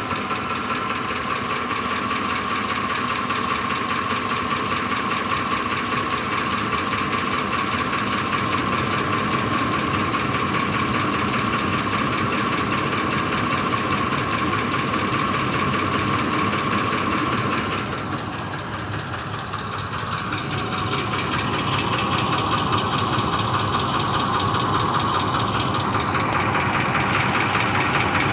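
Ford 5.4-litre Triton three-valve V8 idling warm, with the knock the owner is chasing in this engine.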